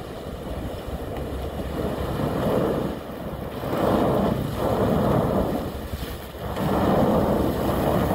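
The tugboat North Carolina breaking harbor ice: a steady low engine rumble under the crunching and grinding of ice and churned water at the hull. The crunching comes in surges, swelling about two seconds in, again around four seconds and once more after six seconds.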